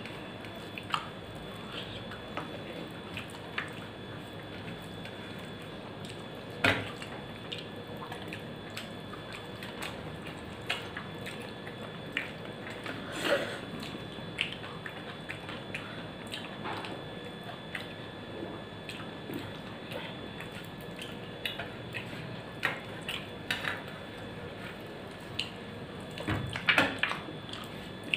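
Eating rice by hand: wet chewing and mouth sounds, with fingers mixing food on a steel plate. Short sharp clicks and smacks come all through, louder about a third of the way in, near the middle, and near the end.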